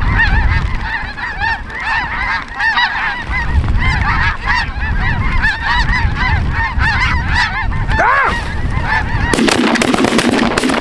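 A large flock of snow geese calling overhead: a dense chorus of many overlapping high honks. Near the end a rough crackling noise suddenly cuts in.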